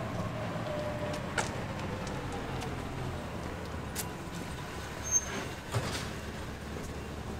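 A motor vehicle passing on the street, its engine note falling and fading over the first few seconds, over a steady low traffic rumble, with a few sharp clicks and taps scattered through.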